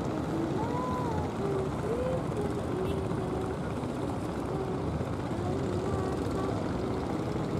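Steady low rumbling noise with faint distant voices.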